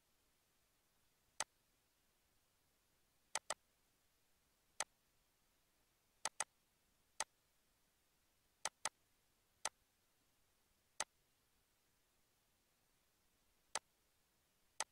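Computer mouse clicking: about a dozen sharp single clicks at uneven intervals, a few in quick pairs, over near-silent room tone.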